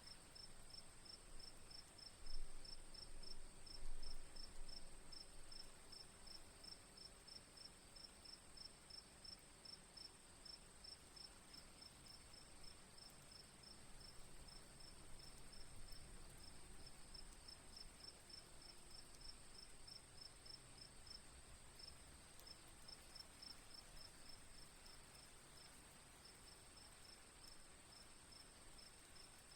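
Faint insect calls: a steady high trill, with a second insect's chirps pulsing about four times a second, over a faint even hiss. Two low thumps come about two and four seconds in.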